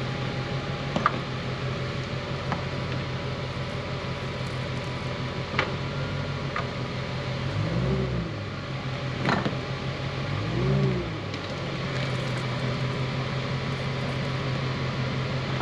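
Land Rover Discovery 2's engine running steadily at low speed, with two brief revs that rise and fall in pitch about halfway through. A few sharp knocks come through now and then.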